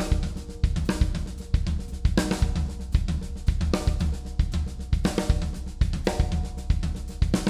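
Drum kit playing a continuous fill of right-left-left-kick and right-left-kick groupings, the hand strokes on the floor tom alternating with bass drum hits, with cymbal hits now and then.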